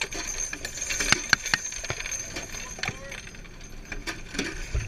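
Spent .50-calibre brass cartridge cases and belt links clinking and rattling against each other and the metal turret roof, an irregular scatter of small, sharp metallic clinks.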